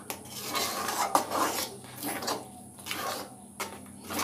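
A spatula stirring and scraping thick, boiling palm-fruit pulp around a metal wok, in irregular rasping swishes.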